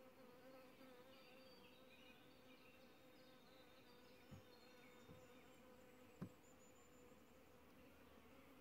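Honeybees buzzing around an open hive, a low steady hum, with three faint knocks in the middle, the last the loudest.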